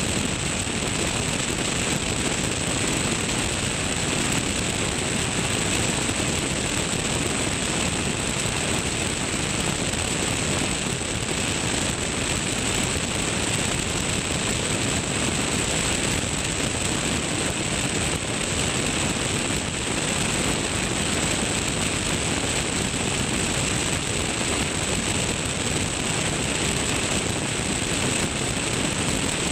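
Tecnam P2002 Sierra ultralight in steady cruise: its Rotax 912 four-cylinder engine and propeller running evenly under heavy wind rush on a camera mounted beneath the wing. A steady high whistle sits over it.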